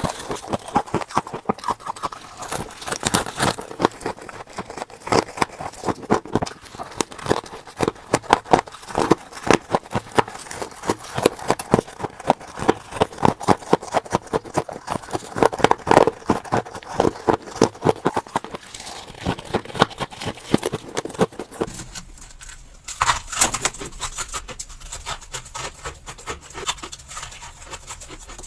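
Crunchy freezer frost ice being bitten and chewed, a rapid run of crisp crackling crunches close to the microphone, thinning out a little near the end.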